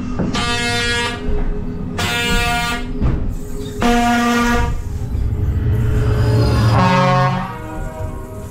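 Dark-ride show audio: three loud horn-like blasts, each just under a second and about two seconds apart, then a falling tone near the end.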